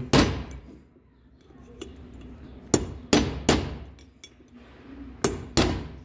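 Hammer blows on a chisel set against the edge of a wheel bearing's outer race (cup) in a Ford Ka rear hub, driving the race out of its bore. The sharp metal strikes ring briefly: one at the start, three in quick succession about halfway through, and two near the end.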